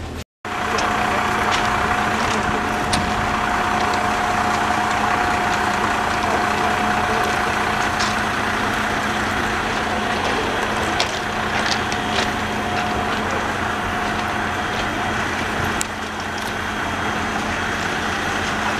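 Diesel locomotive engine idling: a steady hum with a constant whining tone over it, and a few short clicks.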